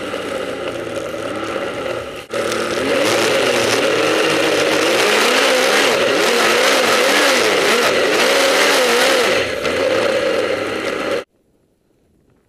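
Snowmobile engine running under way, its pitch rising and falling as the throttle is worked, with a brief dip about two seconds in. The sound cuts off abruptly about a second before the end, leaving near silence.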